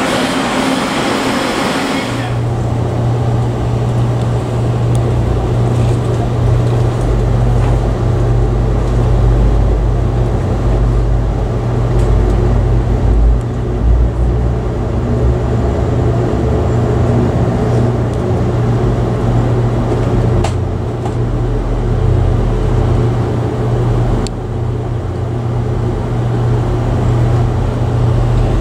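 Interior of a moving passenger rail car: a steady low hum over the rumble of the car riding on the rails, with a few faint clicks. About two seconds in, station platform noise with voices cuts to this ride sound.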